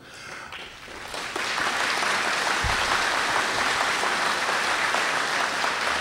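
Audience applauding, swelling over the first second or so and then holding steady.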